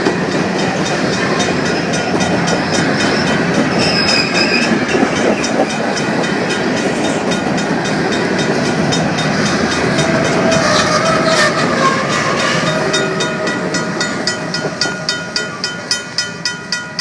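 Freight cars rolling through a grade crossing with steady wheel-on-rail clatter. A RACO mechanical crossing bell strikes in a steady rhythm of about two strokes a second, and it becomes the clearest sound near the end as the rolling noise dies away.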